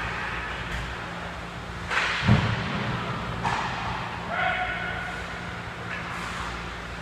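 Ice hockey rink sounds: skate blades scraping the ice over a steady low hum, with one loud thud a little over two seconds in. A short shouted call comes about halfway through.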